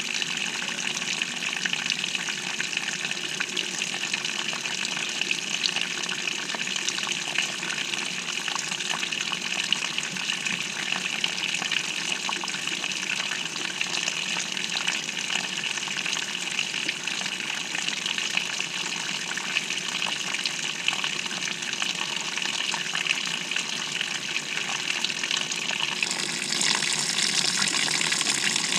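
GE GTW220ACKWW top-loading washing machine filling with water, heard from inside the drum: a steady gushing rush of water pouring in. Near the end the sound turns brighter and a little louder.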